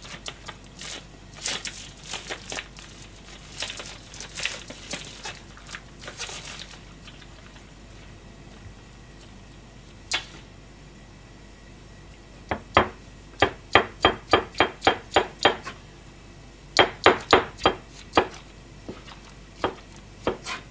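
Plastic packaging crinkling for the first several seconds, then a kitchen knife chopping against a plastic cutting board in quick runs of about three or four strokes a second in the second half.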